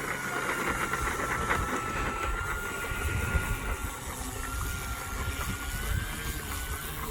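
Wind buffeting the microphone, with the thin, steady whine of an electric RC airplane's motor and propeller in flight; the whine wavers a little in pitch in the second half.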